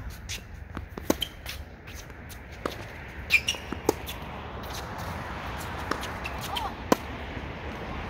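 Tennis balls struck by rackets and bouncing on a hard court: a scatter of sharp pops, the loudest about a second in, twice around three to four seconds in, and once near the end, over a steady rush of background noise.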